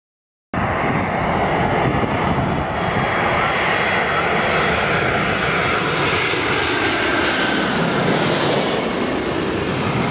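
Jet engines of a twin-engine airliner on landing approach, passing low overhead: a loud, steady roar with a high whine on top. The sound starts suddenly about half a second in.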